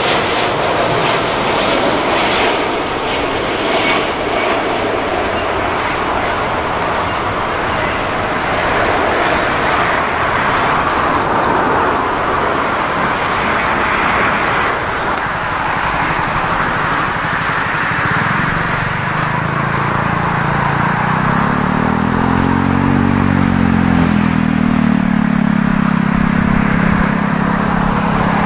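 Boeing 747 freighter jet engines: a loud, steady jet roar mixed with rushing noise. From about two-thirds of the way through, a low engine drone comes in, rises and then falls in pitch as another 747 approaches.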